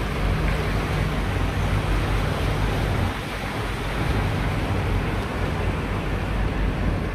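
River cruise boat under way: its engine runs with a steady low hum beneath a constant rush of water and wind noise.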